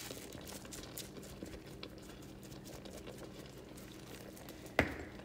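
Faint light patter and ticking as grated cheese is shaken over penne in a metal pot, over a steady low hum. One sharp knock comes near the end.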